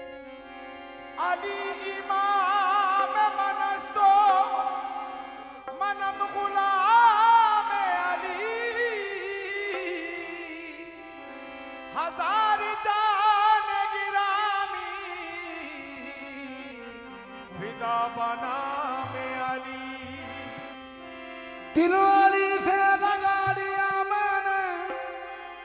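Qawwali singing with harmonium: long, held vocal phrases with a wavering vibrato rise and fall over the harmonium's steady sustained notes, the voices entering afresh several times.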